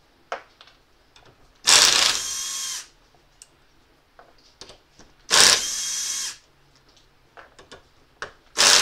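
Cordless drill run three times for about a second each, backing out the bolts on a Toyota 2F smog pump housing held in a vise; each run is loudest as it starts, then holds a steady pitch. Small clicks of the bit and tool being set in place between runs.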